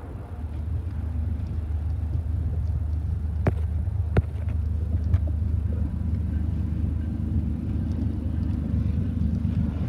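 Diesel locomotives of an approaching BNSF freight train: a steady low rumble that swells over the first second and then holds, with two sharp clicks between three and four seconds in.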